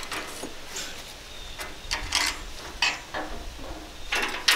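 Window screen frame being worked with a hand tool on a tabletop: a string of short scrapes and clicks, the loudest cluster near the end, over a low wind rumble on the microphone.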